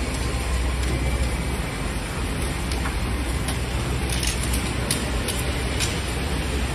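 Tunnel boring machine cutterhead grinding through a station's shotcrete end wall during breakthrough: a loud, steady low rumble, with scattered sharp knocks as broken rock and concrete fall away.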